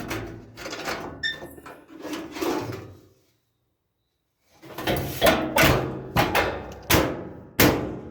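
Sheet-metal bottom panel of a dryer being handled and pushed onto its clips: a run of knocks and rattles, a short pause, then about five sharper knocks as it seats.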